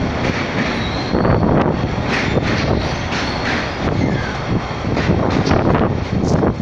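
Narrow-gauge children's railway train running, with a steady loud rumble of the moving train and wheels on the rails, and scattered clicks.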